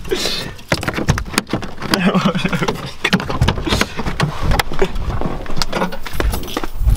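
Clicks, knocks and rustling of people climbing out of a parked car: a car door being opened and a hand-held camera being knocked about.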